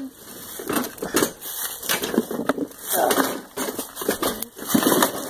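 Irregular knocks and clatter of a small wooden-bed utility trailer being heaved and flipped back onto its wheels, with dry leaves crunching underfoot and a few short voice sounds of effort.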